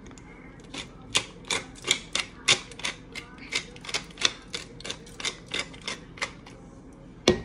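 Wooden pepper mill grinding black pepper, twisted in a quick run of short grinding clicks, about three a second. A single sharp knock near the end is the loudest sound.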